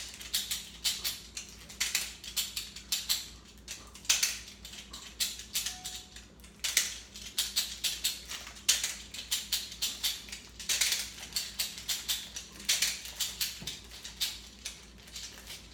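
Master Lock Speed Dial combination locks being worked by hand: quick, irregular clicking as the directional dials are pushed up, down, left and right to enter the combination, several clicks a second.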